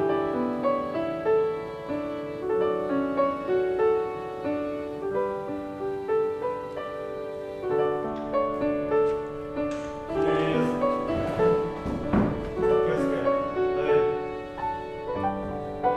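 Solo piano music playing a slow melody of single notes and chords. Over the second half some broad knocking and scuffing noises are mixed in, the strongest about twelve seconds in.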